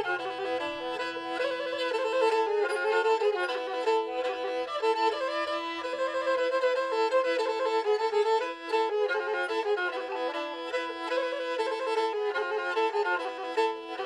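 Pontic lyra (kemençe) playing a quick melody over a steady drone note held on a neighbouring string.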